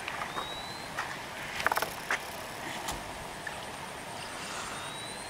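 Outdoor ambience: a steady hiss with a short cluster of clicks about two seconds in, and a faint, thin rising whistle near the start and again near the end.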